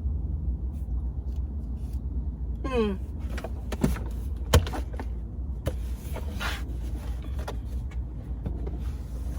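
Knocks and clicks of a used 12-volt portable fridge being handled while its casing is looked over, with one sharp knock about halfway through, over a steady low rumble.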